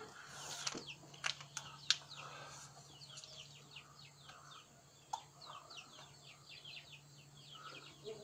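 Birds chirping in many short falling notes, with soft chicken clucks among them. A few sharp clicks come a second or two in, over a faint steady low hum.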